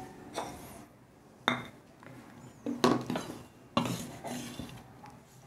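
Kitchen knife slicing garlic on a thick wooden chopping block: a handful of sharp chops, irregular and roughly a second apart.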